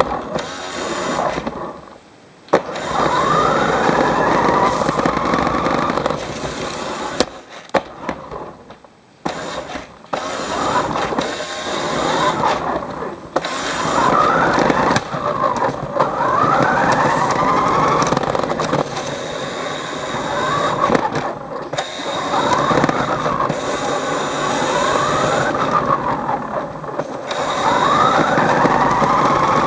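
Small electric motor of a remote-control toy car whining up and down in pitch as it speeds up and slows again and again, driving over a wooden floor. It stops briefly several times.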